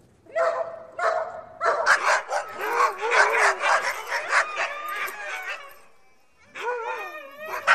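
Dog barking angrily: two single barks, then a fast run of barks lasting about four seconds. After a short pause comes another run near the end, with barks that rise and fall in pitch.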